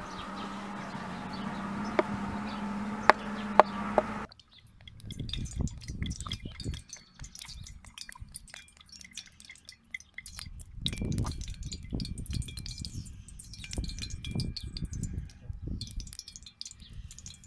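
A knife cutting liver on a wooden cutting board, its blade knocking sharply on the board four times over a steady hum. About four seconds in it gives way to a wood fire crackling under a wok as cooking oil is poured in, with irregular low rumbling swells.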